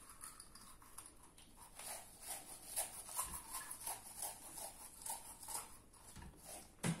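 Steel scouring pad scrubbing a mussel shell: faint scratching strokes, about three a second, with one sharper knock near the end.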